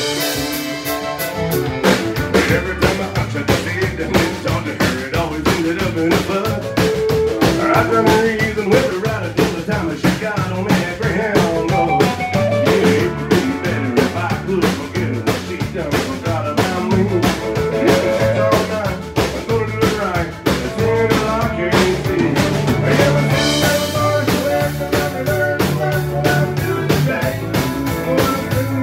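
Live country band playing an instrumental break: drums with rimshots keep a steady beat under guitars, pedal steel guitar and fiddle.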